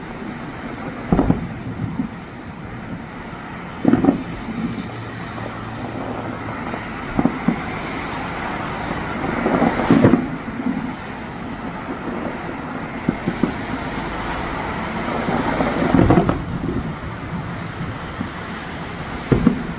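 Fireworks bursting, six low booms a few seconds apart, the loudest about halfway through and again later on, over a steady rumbling background noise.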